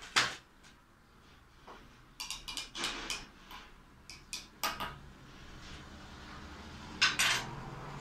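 A metal spoon clinking against a small glass while stirring coffee, in short runs of quick taps. The loudest clatter comes about seven seconds in.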